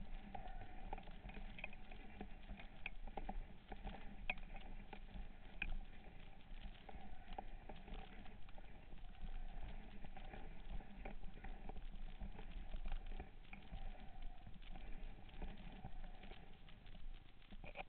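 Faint underwater crackle of many small irregular ticks and clicks, heard through a camera in a waterproof housing.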